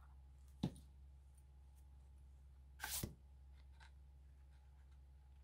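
Quiet room with a steady low hum, broken by a small tap just under a second in and a short rustle about three seconds in, from paper being handled while a piece is glued in place.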